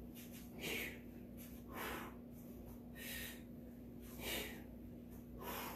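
A woman's breathing during a prone cobra lat pullback exercise: five short exhales, a little over a second apart, one with each pull of the elbows back.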